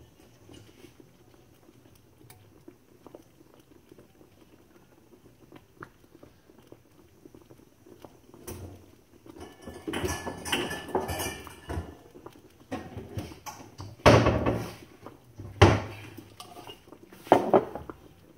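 Kitchen clatter: dishes and utensils clinking and being handled, then three loud knocks spaced about a second and a half apart near the end.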